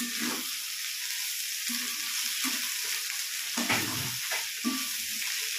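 Onions and onion stalks sizzling in oil in a coated wok, with a steady hiss. A spatula scrapes and stirs them at intervals, with the loudest scrape about two-thirds of the way in.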